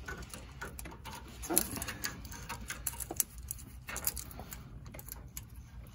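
Irregular light metallic clicks and clinks of a ratchet with an 18 mm socket working the nut off a sway bar end link, while vise grips hold the stud from spinning. One slightly louder knock comes about a second and a half in.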